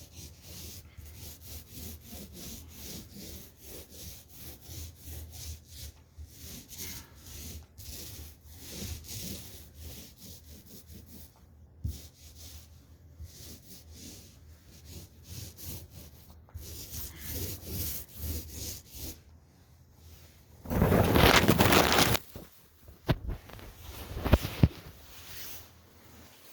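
Paint roller being rolled back and forth over a drywall patch, a repeated rasping swish of about two strokes a second as paint is applied. About 21 seconds in a louder rough scraping noise lasts just over a second, followed by a few sharp knocks.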